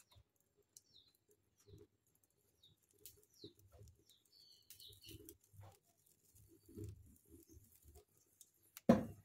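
A wood fire crackling faintly as a plucked chicken is singed in its flames, with short bird chirps in the background and a brief thump near the end.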